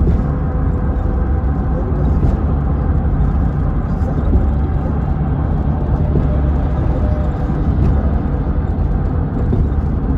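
Steady road and engine rumble heard inside a car cruising on a highway.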